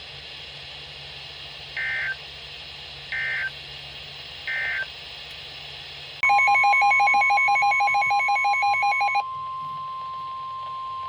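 Emergency Alert System tones: three short data bursts, the end-of-message code, then about six seconds in a steady NOAA Weather Radio 1050 Hz alert tone starts. For its first three seconds a rapid pulsing two-pitch beep plays over it.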